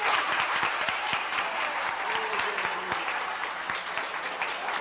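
A roomful of people clapping, a steady round of applause with many overlapping hand claps.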